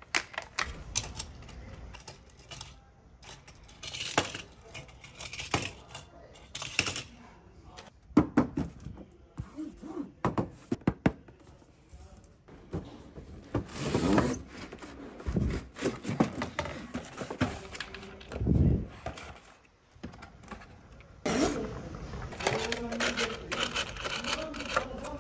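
Hands handling toy cars and their packaging: a run of sharp clicks and light knocks of small die-cast cars and plastic, with scraping and rustling as a boxed model car is taken out of its box.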